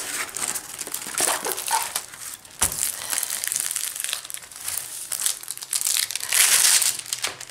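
A stiff diamond-painting canvas in its clear plastic film crinkles and crackles as it is unrolled and pressed flat by hand. The crinkling grows louder near the end, and there is one sharp click about two and a half seconds in.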